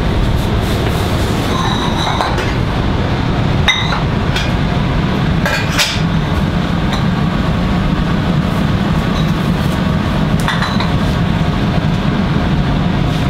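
Steady low rumble of professional kitchen equipment, with a few light metallic clinks and knocks of pots and utensils scattered through it.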